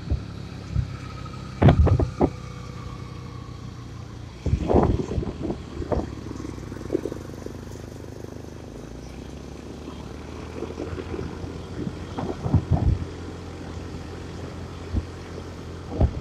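Small motorcycle engine running steadily while riding at road speed, heard from the rider's seat. Irregular loud gusts of wind buffet the microphone several times.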